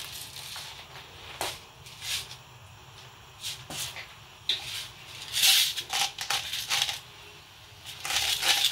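Pink rock salt grinder being twisted by hand, crunching the salt crystals in several short spells, the longest about halfway through.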